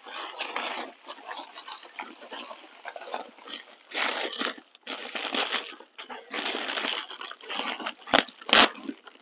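Packaging crinkling and rustling in uneven bursts as it is unwrapped by hand, with two sharp clicks about half a second apart near the end, the loudest sounds.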